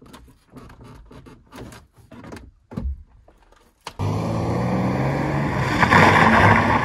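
Clicks and knocks of hands working on a car seat's metal runners, then, from about four seconds in, a BMW E46 325ti Compact's inline-six engine running loudly as the car drives round a turn, with a rush of noise building to a peak near the end.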